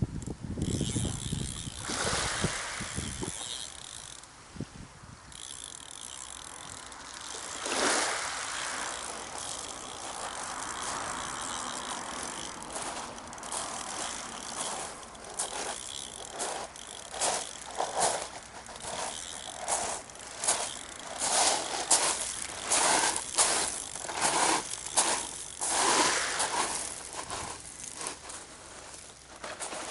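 Surfcasting reel being cranked, its gears and line roller clicking in uneven bursts about once a second through the second half, with wind buffeting the microphone in the first few seconds.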